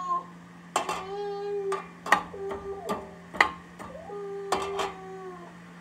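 Metal spoon stirring vegetables in a stainless steel pan: about seven sharp clinks and scrapes, with several held, squeaky tones in between.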